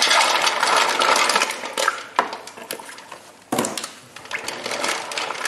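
Live mussels poured from a bag into a stainless steel bowl of water: a dense rush of shells clattering and splashing. Then single shell clicks and rattles against each other and the bowl as a hand moves through them, with one louder knock and splash about three and a half seconds in.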